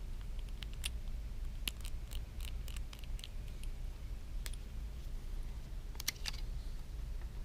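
Light, scattered clicks and ticks of small metal tools on an iPhone 6s Plus screen assembly as its tiny screws are taken out, several in quick succession early on and a close pair about six seconds in, over a low steady hum.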